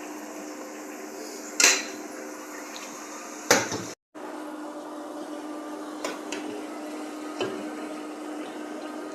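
Kitchen utensils and dishes knocking and clinking now and then, with two sharp knocks in the first few seconds and lighter clicks later, over a steady low hum.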